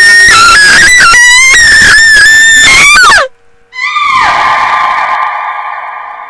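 A woman's loud, very high-pitched scream of terror, wavering in pitch and ending with a downward glide about three seconds in. A second long scream starts about half a second later and trails off slowly.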